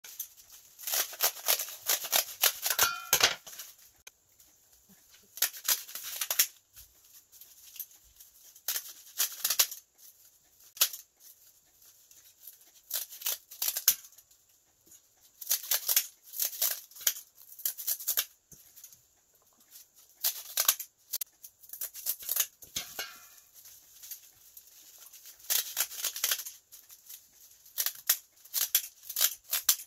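Kitchen scissors snipping through crisp sheets of dried laver (gim seaweed), in quick runs of snips with short pauses between.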